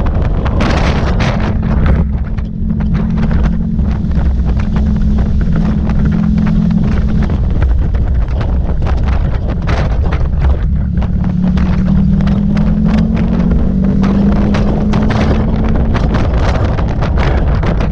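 Wind buffeting the microphone of a moving Honda ST1100 Pan European motorcycle, with the bike's V4 engine note underneath. The engine note holds steady at first, fades around seven seconds in, then climbs again as the bike speeds up from about eleven seconds.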